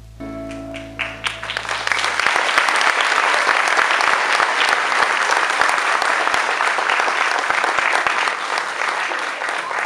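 The dance music ends on a final chord that dies away within the first two seconds. Audience applause swells over it and carries on loudly.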